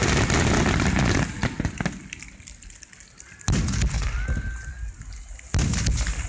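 Aerial fireworks shells bursting with booms and crackle. A dense run of bursts fills the first second or so, then it goes quieter, and two more sudden loud bursts come about three and a half and five and a half seconds in.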